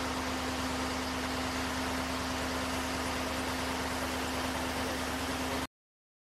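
Engine of a fire brigade turntable ladder truck running at a steady speed, a constant hum over a hiss, which stops abruptly near the end.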